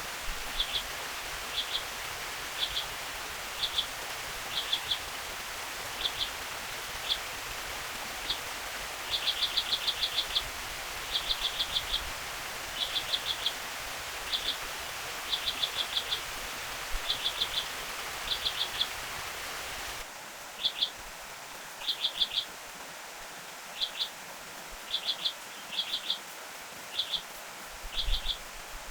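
A small animal calling in quick bursts of high chirps at one pitch, each burst a few rapid notes, repeating about once a second. Underneath is the steady hiss of a forest stream, which drops noticeably about two-thirds of the way through.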